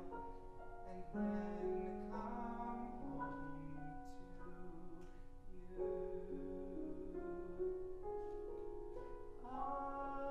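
Grand piano playing the accompaniment of a musical-theatre ballad in sustained, changing chords, with a male singing voice coming in near the end.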